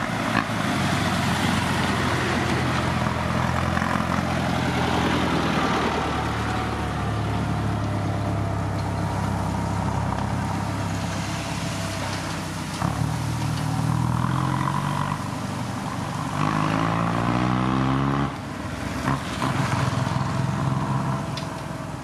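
Diesel dump truck engine running under load. About two-thirds of the way through, its revs climb for a second or two, then drop suddenly.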